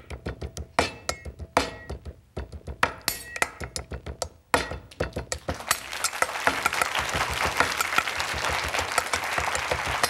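A Chinese cleaver pounding pork chops on a wooden cutting board, a fast run of sharp knocks. About halfway through, studio audience applause swells up over the pounding.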